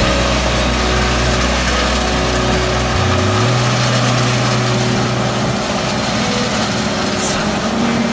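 LS XP7102 tractor's engine running under load, driving a Kemper Champion C2200 forage harvester that chops standing corn for silage and blows it into a trailer: a loud, steady machine din.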